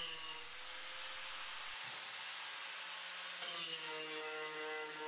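Small electric grinder with an abrasive disc running steadily against the steel floor pan, stripping it to bare metal for welding: a steady hiss of abrasion over the motor's whine, the whine growing stronger about halfway through.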